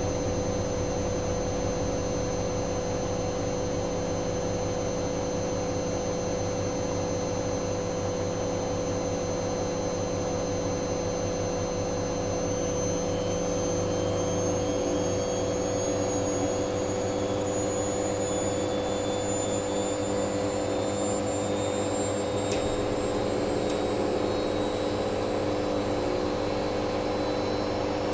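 Hoover Dynamic Next washing machine spinning on its spin-only cycle: a steady motor whine and drum hum. From about halfway through, the higher whine tones slowly climb in pitch as the drum speeds up.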